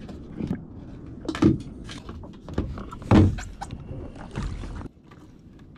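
Irregular knocks and clunks of fishing gear being handled against a plastic fishing kayak, the loudest about one and a half and three seconds in, over a steady hiss that drops away near the end.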